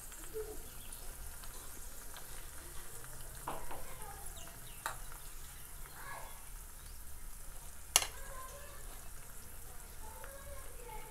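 A steel spoon scooping from a small tempering pan and tapping against the pan and plate as hot oil tempering of cumin, sesame seeds and green chillies is spooned over steamed dhokla, with a faint sizzle. A few sharp clicks, the loudest about eight seconds in.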